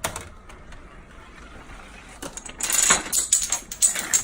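Clatter of small hard objects: a single click at the start, then about two and a half seconds in a quick, dense run of rattling clicks.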